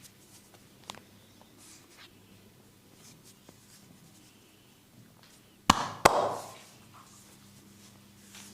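Massage percussion: two loud, sharp smacks of hands striking, about a third of a second apart, a little over halfway through. Faint soft clicks and rustles of hands working come before them.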